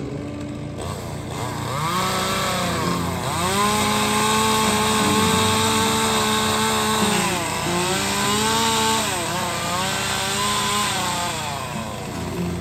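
Stihl chainsaw carving wood, revved up to a steady high whine for several seconds, dropping back briefly and revving again before easing off near the end.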